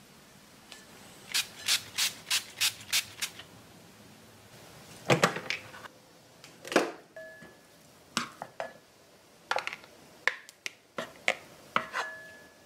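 White plastic rice paddle knocking and scraping against a rice cooker's inner pot while cooked rice is stirred and scooped out. It starts with a quick run of about eight clicks, followed by scattered knocks, scrapes and one heavier thump.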